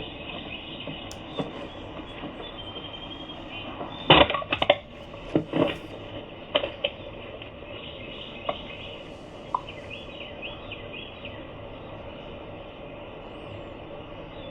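Security-camera audio: a steady background hiss with a cluster of sharp knocks and clinks about four to seven seconds in, then a few lighter clicks. The knocks are the sound of the camera being handled or struck.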